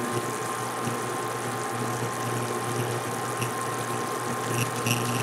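Sugar syrup at a rapid boil in a saucepan, being cooked toward the 300-degree hard-crack stage: a steady bubbling hiss with a steady low hum underneath.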